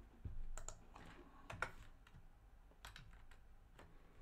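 Computer keyboard keystrokes: a few faint, irregularly spaced taps as code is typed and edited.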